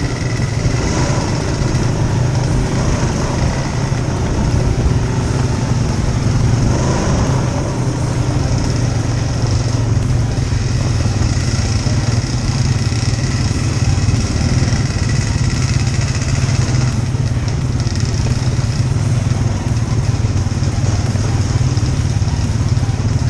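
ATV engine running steadily at trail-riding speed, heard from the rider's seat.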